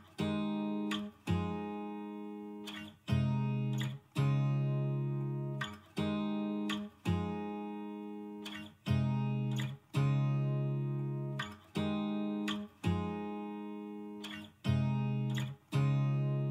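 Background music: acoustic guitar playing strummed chords, each ringing out and fading before the next, roughly one a second.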